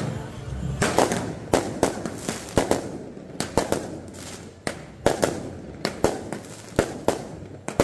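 Firecrackers going off one by one in an uneven series of sharp bangs, about two a second, each with a short echo.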